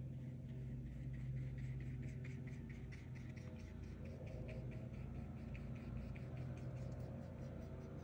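Pencil or brush on paper making a quick run of short scratchy strokes, about three a second, over a steady low hum.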